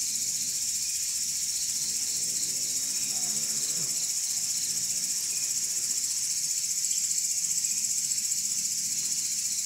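A chorus of night crickets trilling steadily and high, with a fainter chirp pulsing a few times a second.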